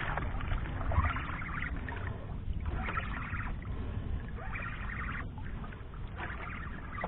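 A spinning reel on a jigging rod is cranked in short spells of winding, about four times, roughly every one and a half to two seconds, as a hooked fish is pumped up, over a steady low rumble of wind and water around a small boat.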